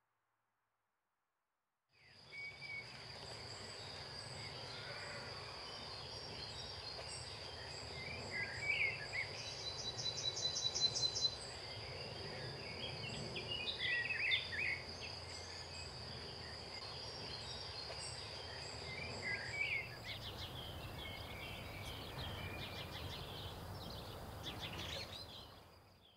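Meadow ambience after about two seconds of silence: a steady high insect trill under scattered bird chirps and calls. A short run of quick, evenly spaced high pulses comes about ten seconds in. The background changes a little past the middle as another outdoor recording takes over.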